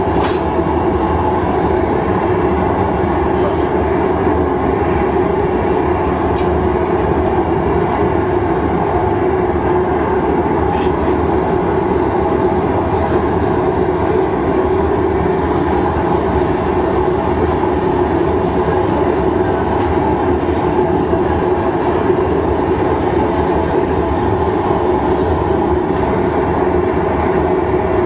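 Steady roar of the gas-fired furnaces in a glassblowing shop, running without a break.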